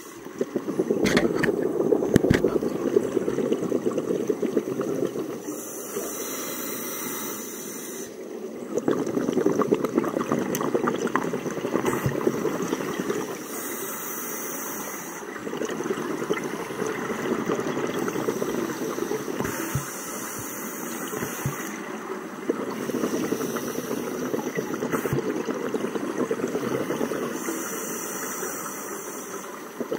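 Scuba diver breathing underwater through a demand regulator: about four slow breath cycles, each a short hissing inhale followed by several seconds of bubbling exhaled air.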